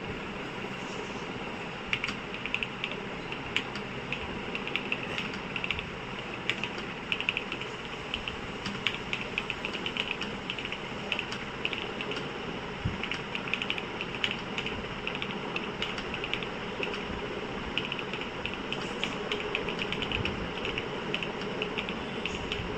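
Keys being typed on a Xinmeng M87 Lite mechanical keyboard with Coconut linear switches: irregular runs of quick key clicks that pause and start again, over a steady background hiss.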